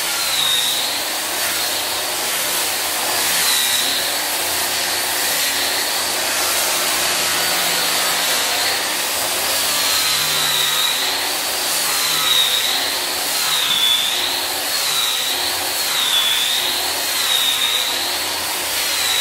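Corded angle grinder fitted with a sanding disc, grinding across old hardwood parquet blocks to strip the finish. A steady, loud motor run with a high whine that wavers up and down in pitch as the disc is worked against the wood.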